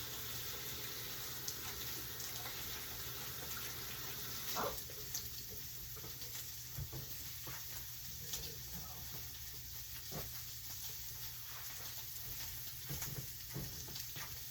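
Food frying in a pan on the stove: a steady sizzling hiss, with a few light clicks of a utensil.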